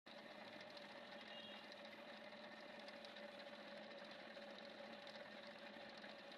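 Faint, steady machine hum with a constant tone, unchanging throughout.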